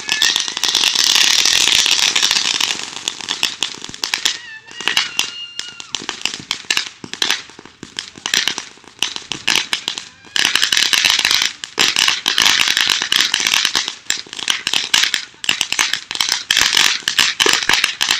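Firecrackers going off in fast crackling strings of pops. There are two dense runs, one at the start and one about ten seconds in, with scattered pops between.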